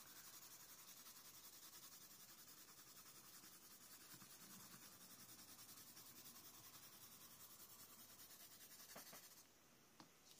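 Faint, quick back-and-forth scratching of a watercolour pencil shading on paper. It stops about nine seconds in, and a couple of small faint clicks follow.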